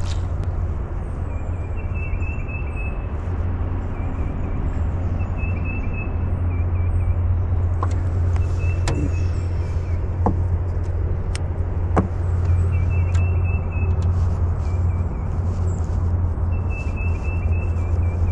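A steady low hum, with a bird repeating a short chirping song phrase every three to four seconds. A few light sharp clicks come in the middle as the hook and bait are handled.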